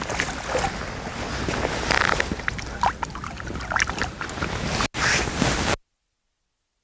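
Water splashing and wind noise on the microphone as a hooked fish is played and reeled in; the sound cuts off to dead silence near the end.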